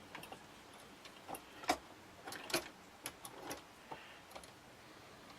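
Small, irregular metal clicks and taps as the steel parts of a 110 bodygrip trap and its wire trigger are handled and lined up.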